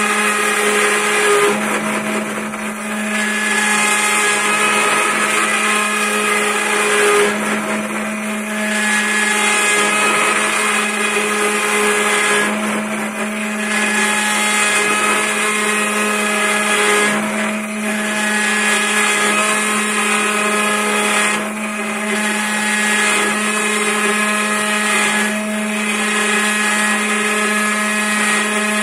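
Homemade CNC lathe machining a spinning block of wood into a sphere: the cutter spindle runs with a steady whine while a 6 mm two-flute flat-end mill cuts the wood. The sound dips briefly every four to five seconds.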